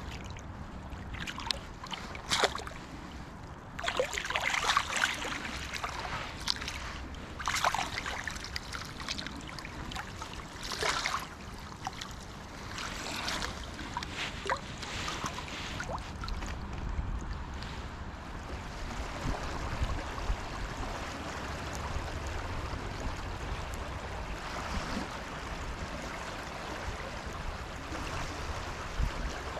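Water splashing and sloshing as a landing net is worked in shallow river water and a steelhead swims out of it, with irregular splashes through the first half. After that comes a steady wash of running water with a low rumble.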